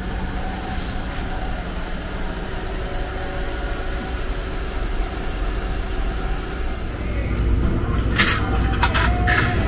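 Steady outdoor street ambience with a low hum. About seven seconds in it gives way to indoor restaurant room noise, with a few sharp knocks and clinks near the end.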